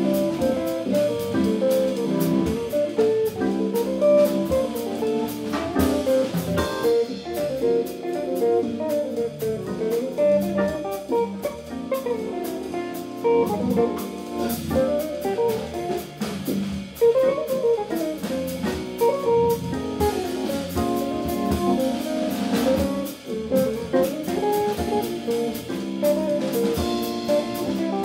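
Live jazz trio of Hammond-style organ, electric guitar and drum kit playing: guitar lines over held organ chords, with the drums keeping time.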